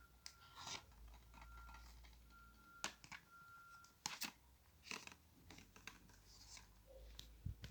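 Faint scattered clicks and rustles of a DVD box set's packaging being handled, with a couple of sharper clicks about three and four seconds in.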